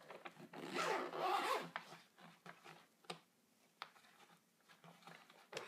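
A zipper being run on the Kirby vacuum's cloth outer bag in one long rasp, followed by a few light clicks and knocks.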